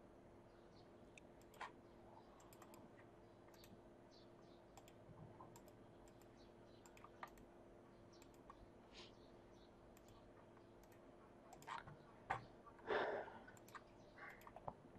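Near silence, broken by faint computer mouse clicks a second or more apart, with a short soft noise near the end.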